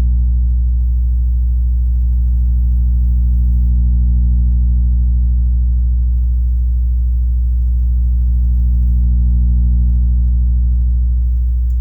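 A 60 Hz sine test tone played through a PA3S amplifier and speaker. It is a loud, steady low hum carrying a stack of overtones and a faint fast buzz, the strange noise the owner reports at some volume settings.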